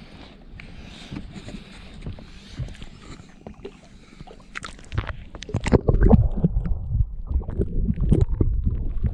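Low rumbling noise on the microphone with scattered knocks and clicks, getting much louder about five seconds in; the sound of a camera being handled or buffeted aboard a small boat.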